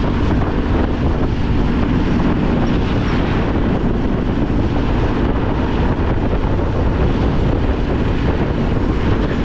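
Wind rushing over the microphone mixed with the steady running of a Honda XRM 125's single-cylinder four-stroke engine at cruising speed.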